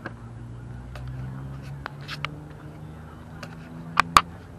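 Corvette V8 running at low revs as the car rolls slowly past, a steady low engine note that rises slightly about a second in. Near the end come two sharp loud cracks about a fifth of a second apart.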